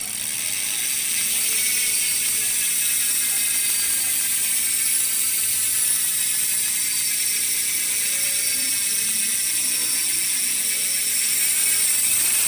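ARC MT-006 four-pawl rear mountain bike hub buzzing as the wheel freewheels: a steady, high-pitched rapid ratcheting of the pawls, a little louder near the end.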